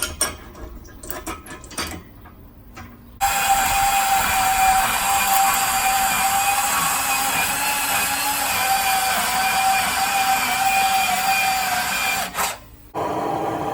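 A few sharp metal clicks, then a power cutting tool runs steadily for about nine seconds with a steady whine, cutting steel flat bar lengthwise, and stops abruptly near the end.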